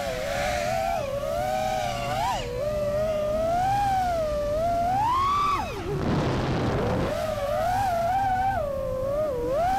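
5-inch FPV quadcopter's brushless motors and propellers whining, the pitch rising and falling constantly with the throttle. A little past halfway the pitch drops sharply and about a second of rushing air follows before the motors spool back up.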